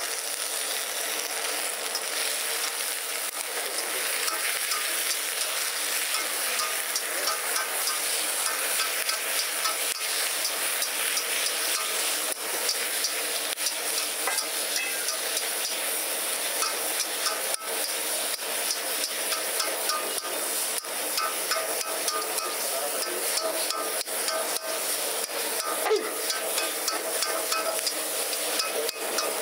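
Apollo fish strips and green chillies sizzling in a hot wok, with a metal ladle scraping and clanking against the wok again and again as they are stir-fried.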